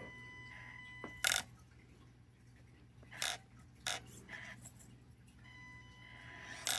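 Axial SCX24 micro RC crawler running: a faint steady high whine, broken by four short, sharp bursts of noise, the loudest about a second in.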